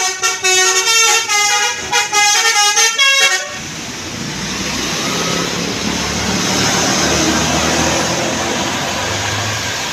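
A telolet multi-tone vehicle horn plays a quick melody of stepped notes. About three and a half seconds in it cuts off abruptly to steady road noise from a passing vehicle, which swells and then fades.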